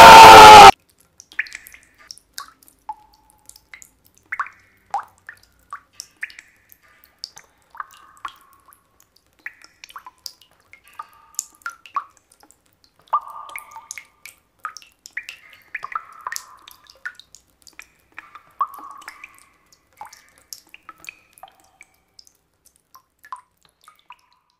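A man's loud scream that cuts off suddenly under a second in. Then single water drops from a dripping tap fall at uneven intervals, each a short, faint drip, until near the end.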